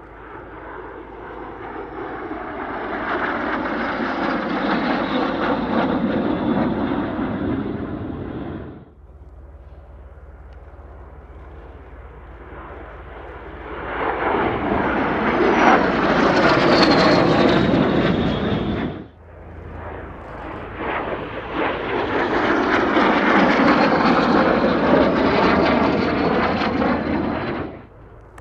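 Aero L-39 Albatros jet trainers' turbofan engines heard in three long fly-by passes, each swelling up over several seconds and then cutting off suddenly. Within each pass the jet whine falls in pitch as the aircraft go by.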